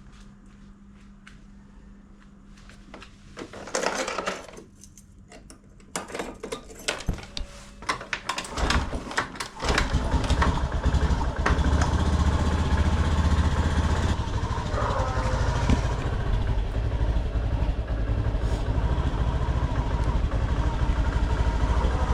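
A few knocks and clatters, then about ten seconds in a motor vehicle engine starts and keeps running with a steady low rumble.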